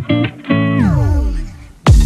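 Music with short plucked guitar-like notes; one note slides down in pitch, then a sharp hit comes just before the end.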